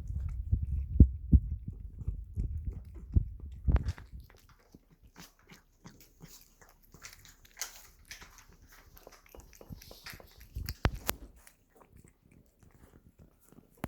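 A cat chewing and licking at treats close to the microphone: dense, loud crunching and mouth thuds for the first four seconds or so, then quieter, scattered smacking and licking clicks.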